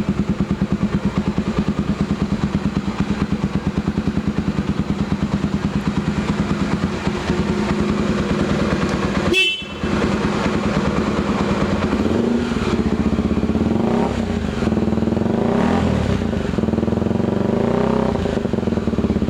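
Honda XR 250 Tornado's single-cylinder four-stroke engine idling with a steady, even beat. From about halfway, after a brief break, it is revved in a series of short throttle blips, rising and falling several times.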